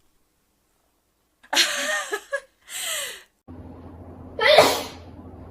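A young woman sneezing, three sharp voiced sneezes: two close together about a second and a half in, then a third about four and a half seconds in over a steady low hum that starts abruptly.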